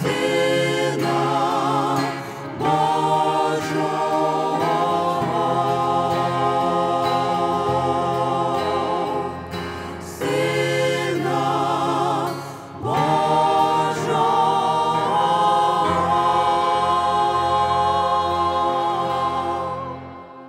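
Mixed group of men's and women's voices singing a Ukrainian Christmas song in harmony, holding long notes in the closing phrase; the singing fades out near the end.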